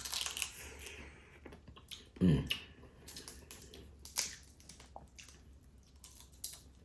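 Close-miked crab eating: crab shell crackling and crunching with scattered wet clicks and smacks, and a brief low vocal sound about two seconds in.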